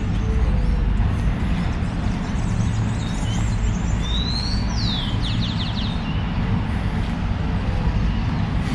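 Steady rumble of street traffic and ambient noise while walking a residential street, with a bird chirping and whistling briefly in the middle.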